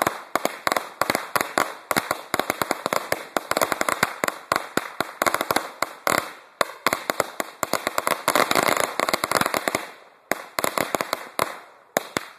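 A long string of firecrackers going off in a rapid, irregular volley of sharp bangs, with brief lulls about six and a half, ten and twelve seconds in.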